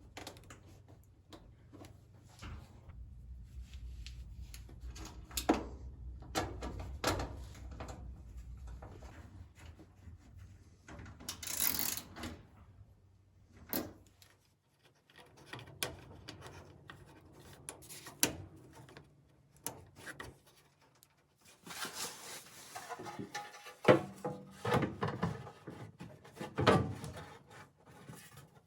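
Sheet-metal dryer panels being handled and fitted by hand: scattered knocks, clicks and scraping rubs, coming thick and fast in the last several seconds.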